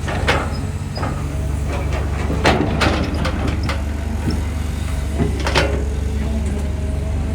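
Cat 320GC excavator's diesel engine running steadily under work, with sharp metallic clanks and knocks now and then, the loudest about two and a half seconds in and again near five and a half seconds.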